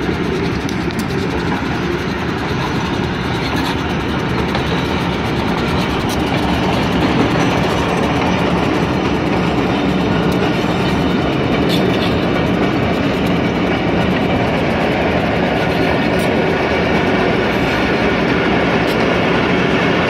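Pakistan Railways diesel locomotive and its passenger coaches rolling past close by: a loud, steady rumble of engine and wheels on the track, with a few faint clicks. It grows a little louder about a third of the way in as the coaches go by.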